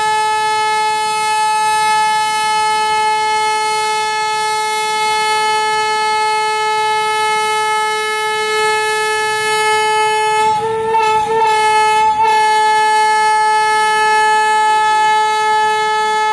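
Diesel locomotive's air horn held in one long, steady note. Its pitch wavers and breaks briefly about two-thirds of the way through.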